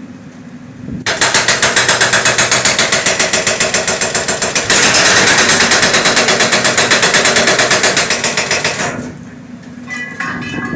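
Concrete breaker (jackhammer) pounding on concrete: rapid, even blows at about seven a second. It starts about a second in, gets a little louder about halfway through and stops near the end.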